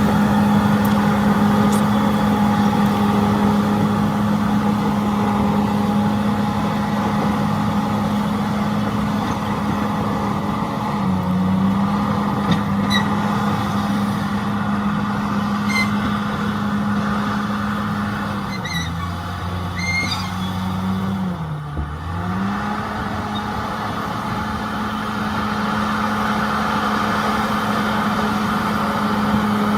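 Heavy earthmoving machine's diesel engine running steadily at high revs. Its pitch sags briefly about eleven seconds in and again, more deeply, around twenty seconds in, recovering each time, with a few short high squeaks in between.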